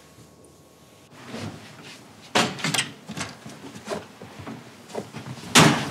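A door being handled indoors: a string of short knocks and clatters, with the loudest thud just before the end.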